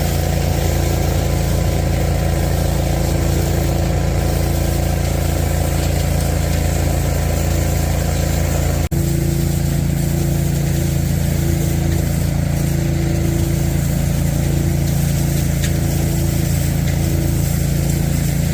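Engine-driven trailer-mounted leaf vacuum running steadily: a constant engine and blower drone with a rush of air over it. There is a momentary break about nine seconds in.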